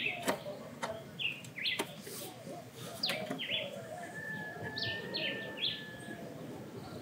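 Small birds chirping in short, falling calls, with one thin, steady whistle lasting about two seconds near the middle. Mixed in are a few sharp metal clicks in the first three seconds as a wrench works a bolt on the engine's accessory bracket.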